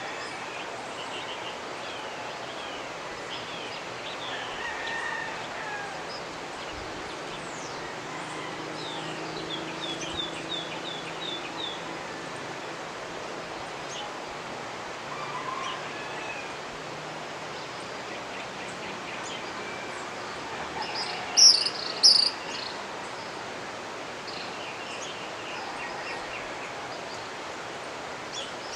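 Mountain river running with a steady rush, under many birds chirping and calling. Two loud, sharp high calls come about three-quarters of the way through.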